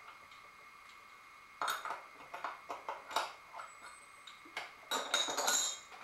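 Metallic clinking and rattling of brass chips and lathe tooling being handled on a Taig benchtop lathe, in irregular clusters from about one and a half seconds in, busiest near the end. A steady faint whine runs underneath.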